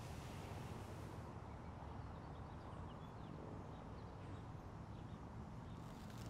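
Quiet room tone: a steady low hum and hiss, with a few faint, brief high chirps in the middle.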